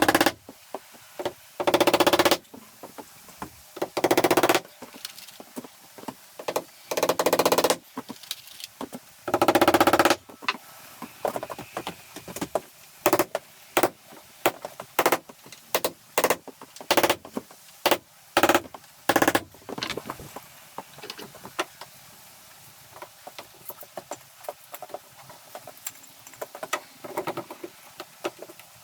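Cordless impact driver run in bursts of about half a second, a rapid rattling hammer, as screws are driven to fix wooden molding above a door. It is followed by a run of shorter, quicker trigger pulls, and only light taps near the end.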